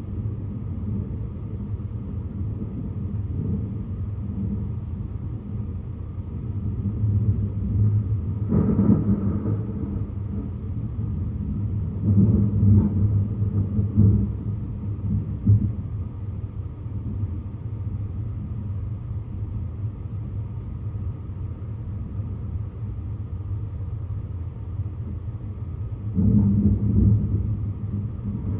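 Thunder rumbling through a lightning storm, deep and continuous. It swells louder around nine seconds in, again between about twelve and sixteen seconds, and once more near the end.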